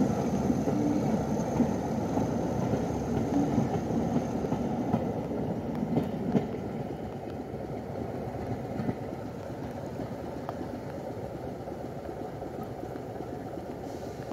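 A Class 31 diesel-hauled passenger train pulling away over the rails, its rumble falling away gradually, over the steady idle of a pair of Class 25 diesel locomotives. A few sharp knocks come about six seconds in.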